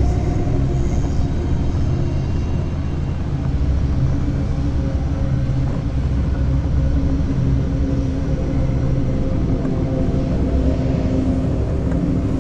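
Triumph Scrambler 1200's parallel-twin engine running steadily under way, a continuous low rumble.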